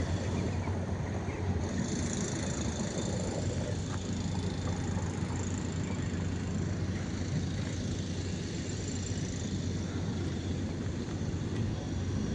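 Steady street traffic noise with a low rumble from passing vehicles.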